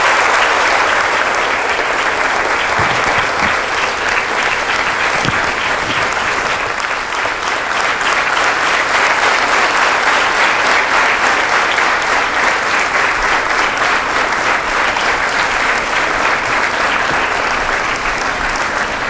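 Audience applauding steadily and at length, the clapping dying down at the very end.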